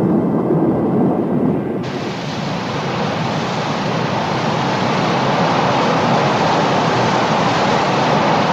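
Waterfall rushing steadily, cutting in abruptly about two seconds in; before that, a low rumbling noise.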